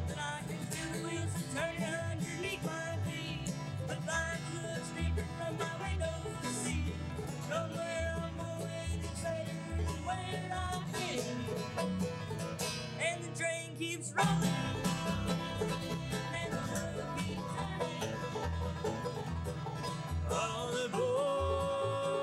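Bluegrass band playing a song on banjo, fiddle, mandolin, acoustic guitar and upright bass over a steady bass beat, with voices singing held notes near the end.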